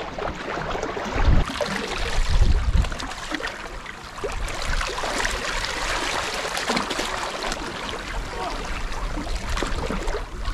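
Seawater washing and trickling among shoreline rocks, a steady splashing hiss. Gusts of wind buffet the microphone about a second in and again between two and three seconds in.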